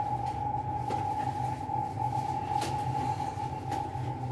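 Steady hum with a constant high tone from a running kitchen appliance, with a few faint clicks as a metal spoon spreads butter on bread.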